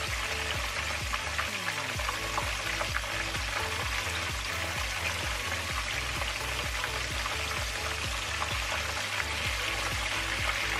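Two whole flour-dusted snappers shallow-frying in vegetable oil in a wide pan: a steady sizzle with fine crackling. Background music plays underneath.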